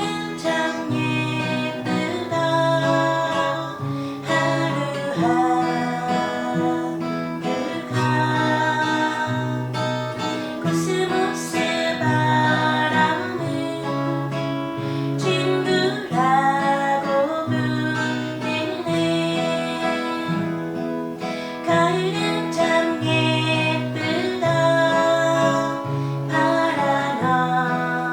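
Acoustic guitar strummed and picked, with a voice singing a melody over it.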